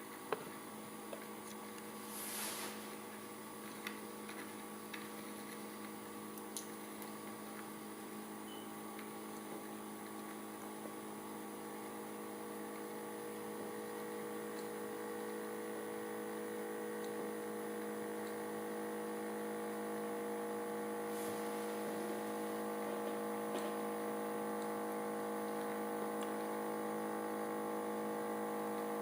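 Magnetic stirrer running with a small steel spinning top driven round on it: a loud, steady hum of several tones that slowly grows louder, with a brief swish about two and a half seconds in.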